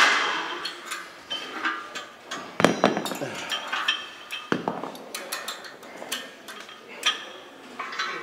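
Metallic clinks and clanks of iron barbell plates and a spring clip collar being handled on a loaded bar, with a scattering of sharper knocks.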